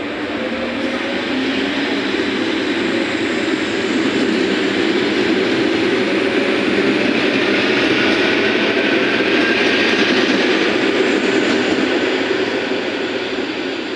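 EP2DM electric multiple unit pulling away from a station: its traction motors whine, rising in pitch as it picks up speed, over the rumble of the wheels. The noise swells to a peak about two-thirds of the way in, then fades as the train moves off.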